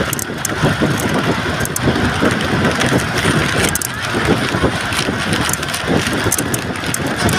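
Steady engine and road noise of a vehicle travelling at speed, heard from inside the cabin, with wind and scattered small clicks and rattles.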